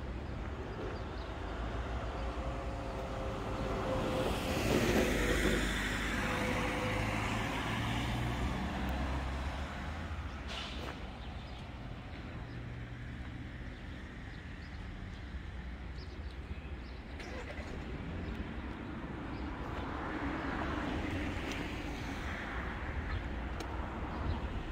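Road traffic: motor vehicles passing by over a steady low rumble, one swelling up and fading away about five seconds in, another about twenty seconds in.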